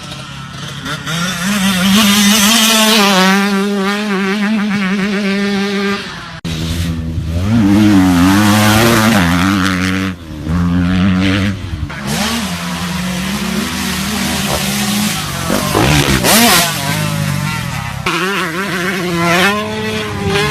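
Motocross dirt bike engines revving, the pitch rising and falling with the throttle, with several abrupt changes from one engine sound to another.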